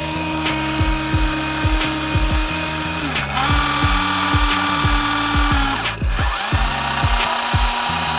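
Electronic background music: a kick drum about twice a second under a sustained buzzing synth tone that shifts pitch a few times.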